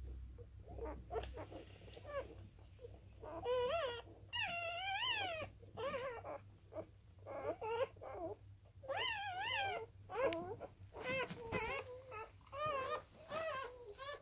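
Newborn wire-haired dachshund puppies squeaking and whining while nursing: a long run of high, wavering calls, some short and some about a second long.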